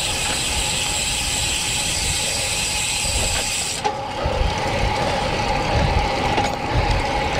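Road bike's rear freewheel hub ticking rapidly as a fine high buzz while the rider coasts, cutting off suddenly about four seconds in. After that come a steady riding hum and wind buffeting the microphone in low rumbles.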